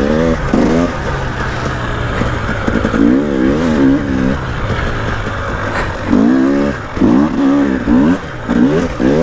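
KTM 300 two-stroke enduro bike's engine revving in repeated bursts, its pitch swinging up and down as the throttle is opened and closed, with wind noise on the microphone.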